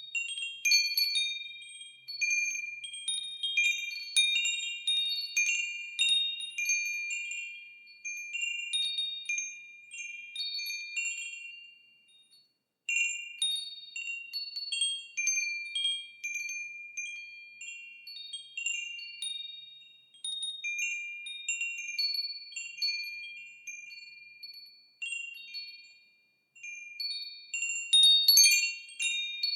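Wind chimes ringing in irregular clusters of high, clear tones, each note ringing on and fading. There are two brief lulls, one about twelve seconds in and one near the end, and then a busier flurry of strikes.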